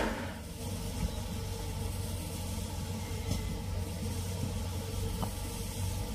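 A louder sound fades out in the first half second, leaving a steady low mechanical hum.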